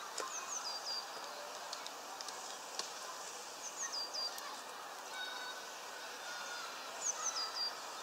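A small songbird's high, short phrase of three or four quick notes stepping down in pitch, given three times about every three and a half seconds, with a few light clicks in between.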